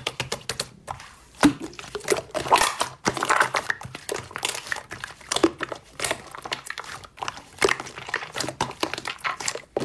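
Pink slime squeezed, pressed and stretched by hand, giving an irregular run of sticky clicks and crackles.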